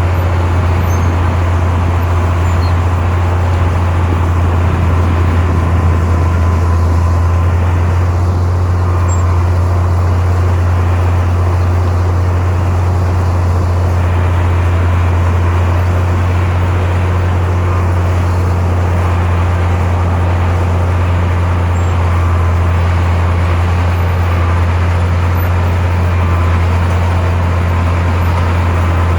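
Heavy diesel engine of earthmoving machinery running steadily, a deep constant drone with a rumbling haze over it.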